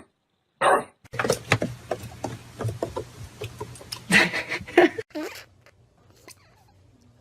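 A dog barks once, then a few seconds of rustling and clicking with brief voice-like sounds over a low hum.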